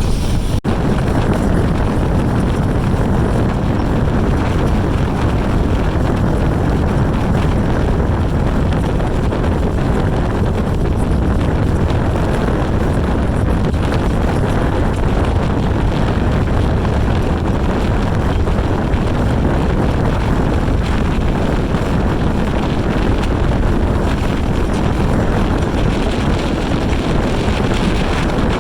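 Motorboat running at speed over rough water, with wind buffeting the microphone in a steady rush.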